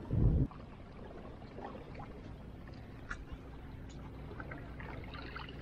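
Quiet waterside ambience: a steady low wash of water and air with a few faint small ticks, after a short low thump on the microphone right at the start.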